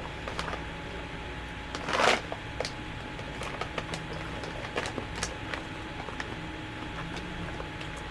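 Small scattered clicks and crackles, with a louder rustle about two seconds in, over a steady low hum: crunchy caramel snack clusters being handled and bitten into.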